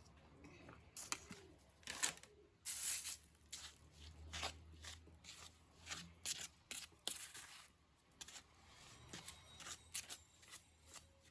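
Irregular rustling and clicking of things being handled, a dozen or more sharp short sounds with brief pauses between them, loudest about three seconds in.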